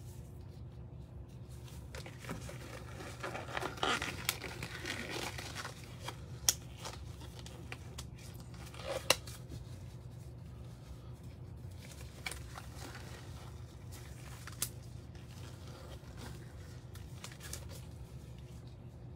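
Crinkling and rustling of something being handled, strongest a couple of seconds in and lasting a few seconds, then a few scattered sharp clicks, over a steady low hum.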